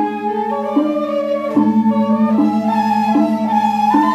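Two Balinese suling bamboo flutes playing together: a melody stepping from note to note about once a second over a steady low held tone.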